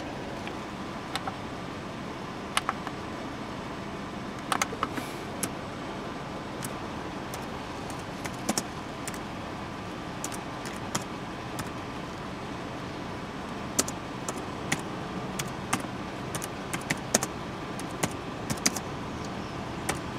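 Irregular light clicks and taps, more of them in the second half, over a steady background hum.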